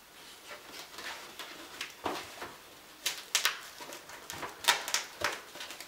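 A fabric deer decoy being strapped onto a compound bow: cloth rustling and a string of short scratchy rasps from its Velcro straps, the loudest about three and five seconds in.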